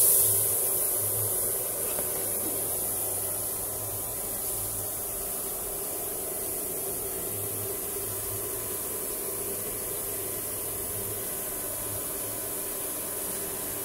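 Machinery running steadily in a workshop: an even hiss with a low steady hum under it.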